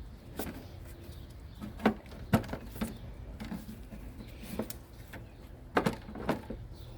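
Scattered light clicks and knocks of the plastic washer fluid reservoir and fluid jug being handled while washer fluid is added, over a low steady hum.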